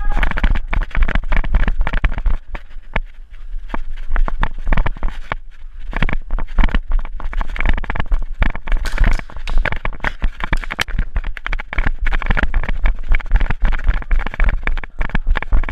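Rapid running footsteps on a rubber-crumb floor, with gear and the head-mounted camera rattling and knocking, over a constant low rumble.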